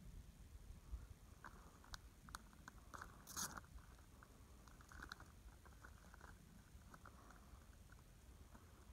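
Near silence: faint background with scattered light clicks and one brief rustle about three and a half seconds in.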